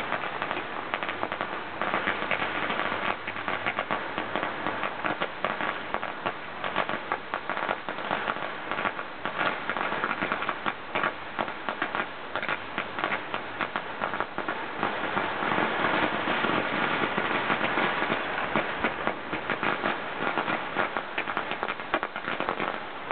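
Many strings of firecrackers going off across a city at once, a dense, unbroken crackle of countless sharp cracks.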